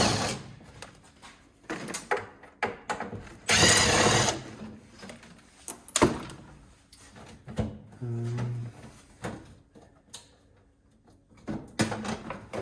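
Clanks, knocks and scrapes of the pressed-steel casing of a gas instant water heater being worked loose and pulled apart by hand, with one longer scrape about four seconds in.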